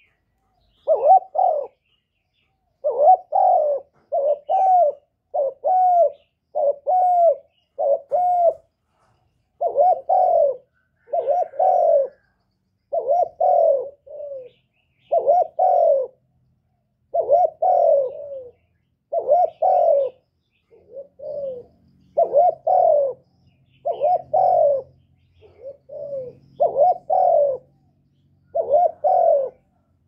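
Spotted dove cooing: a long run of short coo notes, about one a second and sometimes in quick pairs, a few of them softer.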